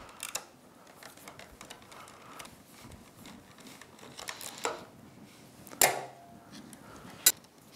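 Socket ratchet backing a bolt out of an outboard engine's cover, with faint ratcheting clicks, then a few sharp clicks and knocks as the cover is pulled free by hand, the loudest near the end.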